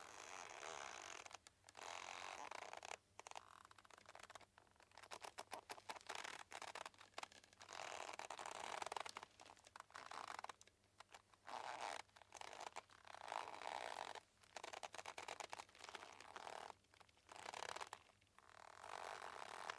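Boat mooring rope creaking under strain, a faint grating creak every second or so, each one a quick run of tiny crackles with short gaps between.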